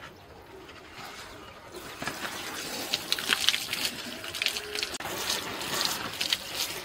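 Small leaves being washed by hand in water: splashing and sloshing with irregular clicks and rustles, starting about two seconds in.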